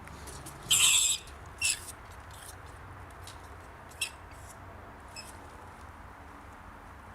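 An angry rat squealing: a loud, high-pitched squeal just under a second in, a shorter one soon after, then a few brief fainter squeaks.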